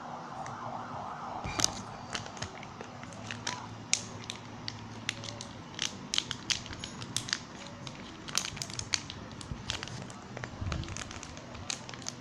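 Homemade glue-and-detergent slime being mixed and worked by hand, giving irregular sticky crackling and clicking that gets busier about a second and a half in. A faint steady hum runs underneath.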